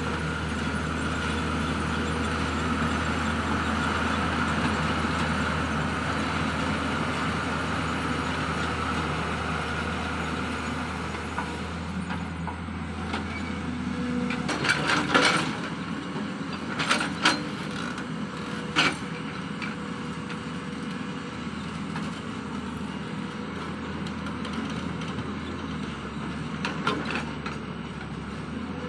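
Tata Hitachi excavator's diesel engine running steadily with a hydraulic whine. Several sharp knocks come about halfway through and one more near the end.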